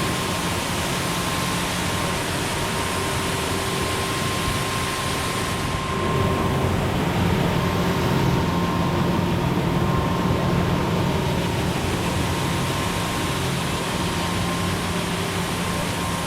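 Combine harvester running steadily with a machine hum, most likely unloading grain through its unloading auger into a truck. About six seconds in it gets a little louder and deeper.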